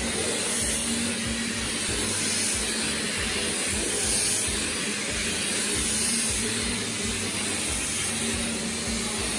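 Upright stick vacuum cleaner running steadily, a hiss with a low hum, as its head is pushed back and forth over thick-pile carpet.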